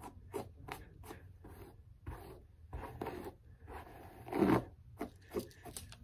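Hairbrush strokes rasping through long hair, quick repeated swipes about two or three a second, with one louder stroke about four and a half seconds in.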